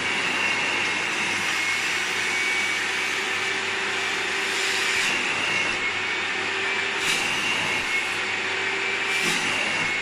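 Thomas washing vacuum cleaner running steadily, its upholstery nozzle drawn in strokes across a fabric chair seat to suck out water. The pitch of the suction shifts slightly with each stroke, with a faint click about every two seconds in the second half.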